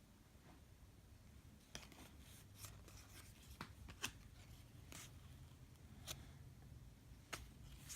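Faint ticks and rubs of trading cards being handled and flipped one behind another, a soft tick every half second to a second.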